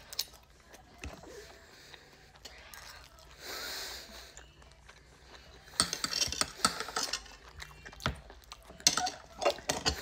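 Faint chewing, then from about six seconds in a steak knife and fork cutting steak on a plate: sawing and scraping with sharp clicks of metal against the plate.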